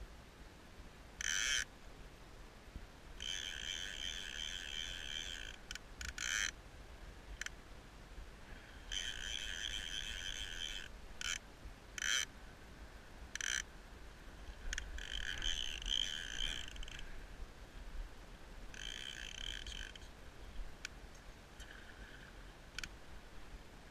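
Fly reel's ratchet check buzzing in repeated bursts, most about half a second long and a few lasting one to two seconds, as line runs on the reel while a salmon is played.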